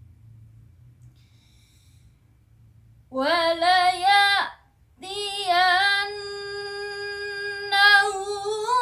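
A young girl reciting the Quran in a melodic, chanted style with a high voice. A phrase begins about three seconds in and breaks off briefly. The voice then holds a long drawn-out note with small wavering turns.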